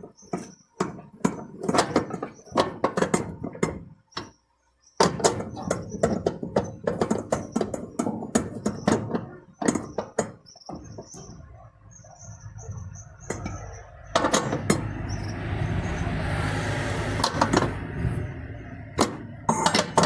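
Bolts being tightened down on a washing machine's transmission mechanism: a run of sharp metallic clicks and knocks from tools and parts. A steadier whirring noise comes in from about fourteen to eighteen seconds in.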